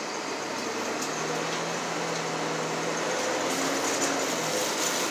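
City transit bus heard from inside the passenger cabin: a steady engine drone and cabin rumble with a low hum, growing slightly louder.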